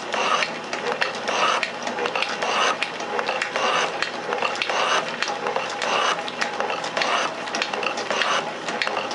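Metal shaper running: the ram strokes back and forth while the tool cuts a steel workpiece clamped in the vise, giving a rhythmic mechanical clatter that repeats a little more than once a second.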